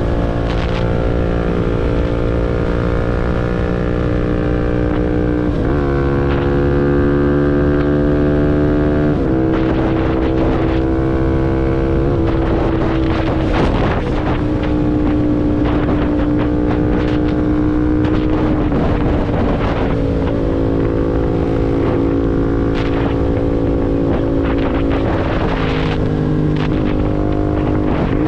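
CFMoto NK250's single-cylinder engine through a full Akrapovič exhaust, running under way on the road. Its note changes pitch in steps several times as the engine speed rises and falls, with wind noise on the microphone throughout.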